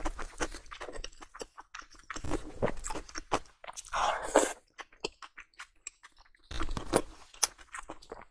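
Close-miked chewing and biting of a soft dumpling soaked in chili oil: wet mouth noises in irregular bursts, with many small clicks in between.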